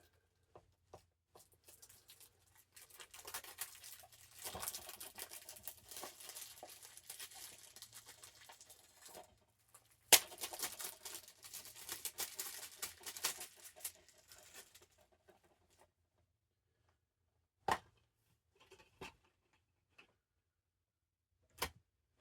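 Plastic wrapping crinkling and tearing as a DVD case is unwrapped, in two long stretches split by one sharp snap about ten seconds in. A few separate clicks of the plastic case being handled and opened follow near the end.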